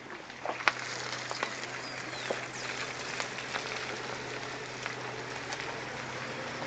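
Vehicle driving slowly on a wet dirt road: a low steady engine hum under the crackle and popping of tyres rolling over mud and small stones, with one sharp click just under a second in.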